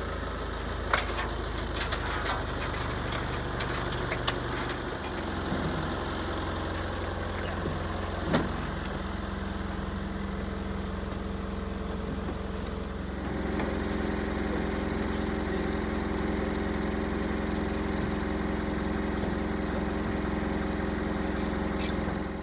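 Backhoe engine running steadily at idle; its note shifts about five seconds in and it gets a little louder around thirteen seconds. A few sharp clunks, about a second in and again around eight seconds, come from the steel-rimmed tractor tire being worked off the bucket into a pickup bed.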